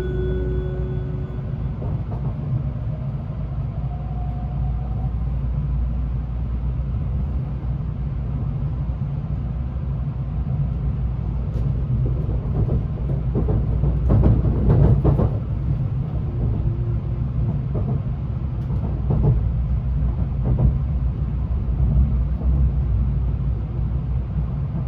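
Interior running sound of an N700A Tokaido Shinkansen car: a steady low rumble with a cluster of knocks and clatter about halfway through and a few more a little later. The last notes of the onboard melody chime ring out in the first second or two.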